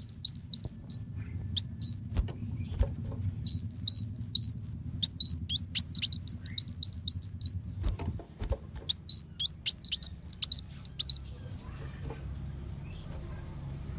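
Kolibri wulung sunbird singing: bursts of rapid, high-pitched, sharply slurred chirps in phrases a second or two long, stopping about three quarters of the way through. A low steady hum runs underneath.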